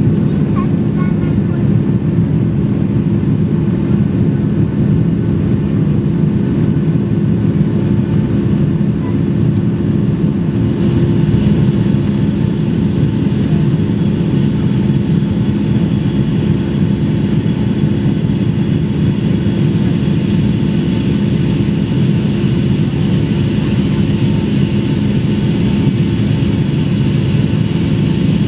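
Boeing 757-200 cabin noise during the climb after takeoff: a loud, steady rumble of jet engines and airflow with a low hum. About ten seconds in, a higher hiss grows stronger and stays.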